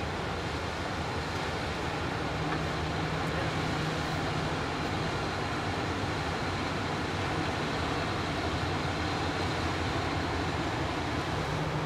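Steady drone of a river push boat's diesel engine pushing a loaded barge, with its churning wake.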